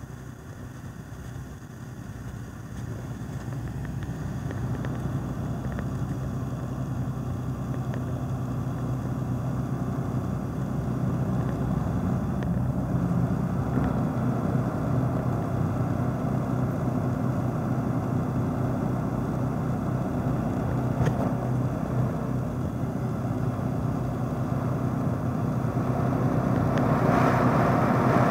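Engine of a boom truck crane running steadily, growing gradually louder, then louder and brighter near the end as it is worked harder.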